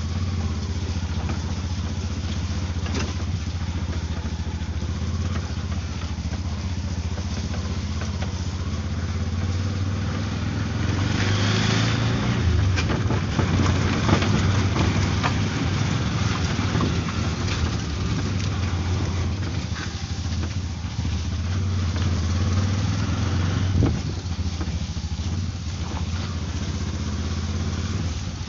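Auto rickshaw's small engine running steadily as it drives along a rough dirt lane, with scattered knocks and rattles. The engine gets louder and harsher for a few seconds about halfway through.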